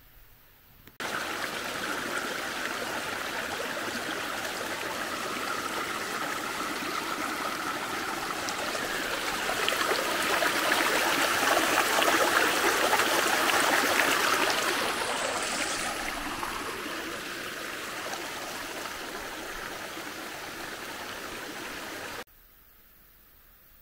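Steady rushing of a flowing stream, growing louder for a few seconds in the middle and then easing off; it starts and stops abruptly.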